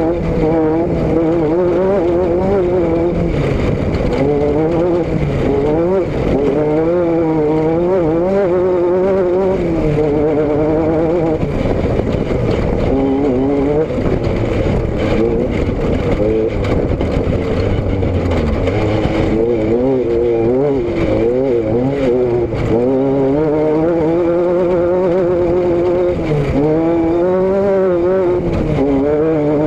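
A vehicle's engine and exhaust running under way, the pitch rising and falling again and again with the throttle, over a steady rushing noise.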